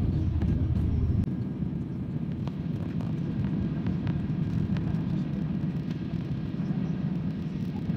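Airliner cabin noise while taxiing, heard from inside: a steady low rumble of the jet engines and rolling aircraft. The deepest part of the rumble drops away about a second in.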